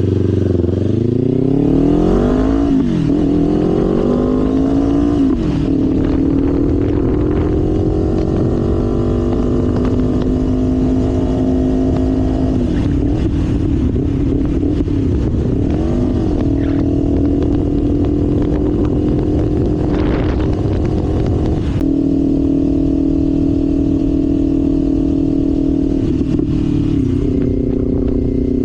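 Kawasaki Ninja 500's parallel-twin engine pulling away and accelerating up through the gears, its pitch climbing in several steps with short dips at each shift over the first five seconds. It then settles into a steady cruise, with a few brief dips in pitch as the throttle eases.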